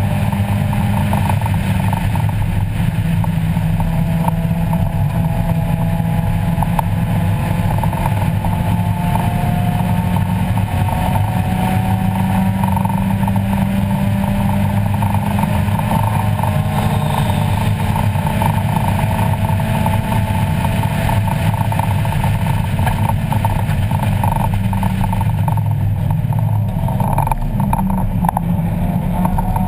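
Race-prepped 1994 Mazda Miata's 1.8-litre four-cylinder engine pulling hard at high revs, heard loud from inside the cabin, its pitch slowly rising. Near the end the engine note drops away briefly, then starts climbing again.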